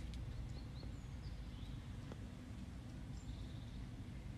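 Steady low background rumble, with faint, short, high bird chirps scattered through it.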